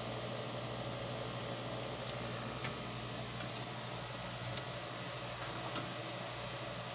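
Steady hum and hiss of a CO2 laser engraver's running fans, with a few faint clicks and a small sharp tick about four and a half seconds in.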